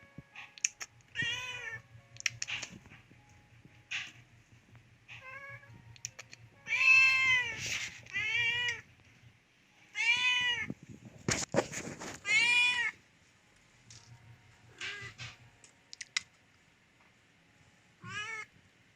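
Cat meowing repeatedly: about ten meows at uneven intervals, each rising and falling in pitch, the longest and loudest in the middle. A low rumble runs under the first half.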